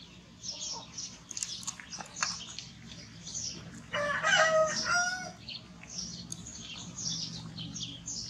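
A rooster crowing once, a loud call of about a second and a half in two parts, the second a little higher, starting about four seconds in. Short high chirps come and go throughout.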